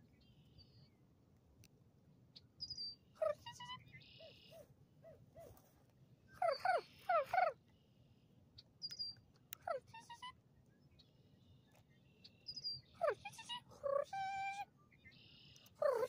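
Birds calling: a series of short cries that slide down in pitch, several overlapping about six to seven seconds in, and a longer held call near the end.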